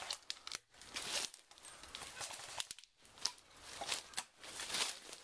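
Rustling and crackling with scattered sharp clicks at irregular intervals.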